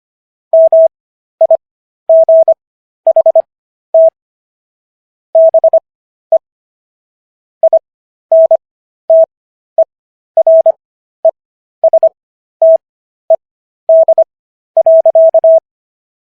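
Morse code practice tone: a single mid-pitched beep keyed on and off in short dots and longer dashes. The characters are sent at 25 words per minute with Farnsworth spacing, the longer gaps between characters and words bringing the overall speed to 15 words per minute. It stops shortly before the end.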